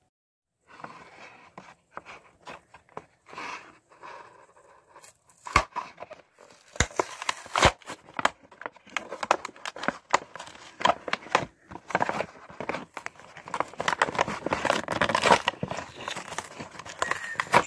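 Hands opening a diecast toy car's blister pack: the plastic bubble crinkling and the cardboard backing card tearing, with a few sharp clicks a little over five seconds in and the crinkling growing busier in the second half.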